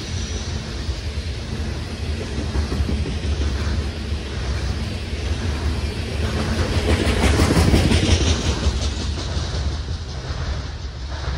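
Freight train of open-top coal hopper cars rolling past, steel wheels clacking over rail joints. The clacking is loudest about seven to eight seconds in, then fades as the last car goes by.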